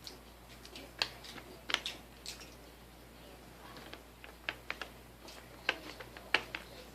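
A series of short, sharp clicks and taps, about a dozen, spaced irregularly and clustered around two seconds in and again from four and a half seconds on.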